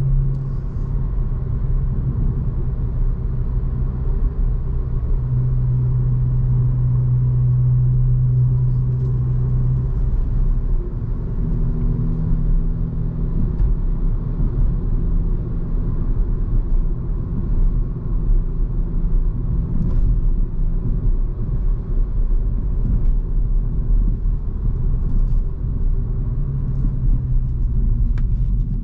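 Hyundai i20 N's 1.6-litre turbocharged four-cylinder engine and tyre rumble, heard from inside the cabin while cruising. The engine hum steps up in pitch a little past ten seconds in and settles lower again near the end.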